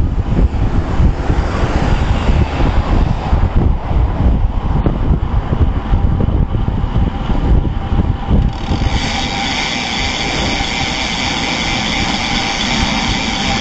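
Wind rumbling on a bicycle-mounted camera's microphone while riding, over the noise of passing traffic. A little past halfway the gusty rumble settles and a steady hiss comes in.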